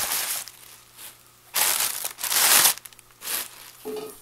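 Tissue paper crinkling and rustling in several bursts as a hand digs through it inside a cardboard box. The longest and loudest burst comes in the middle.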